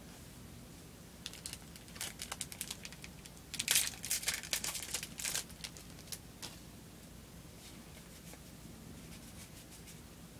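Trading-card booster pack's shiny wrapper being torn open and crinkled by hand: a run of crackling starts about a second in, is loudest in the middle, and dies away after about six seconds.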